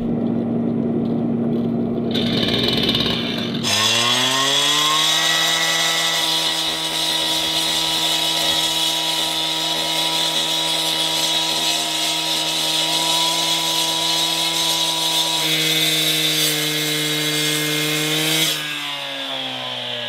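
Gas-powered cut-off saw with a 14-inch diamond blade, wet-cutting a relief joint into a freshly poured concrete slab. It runs low for the first few seconds, then revs up about four seconds in to a steady high whine while cutting, and winds down near the end.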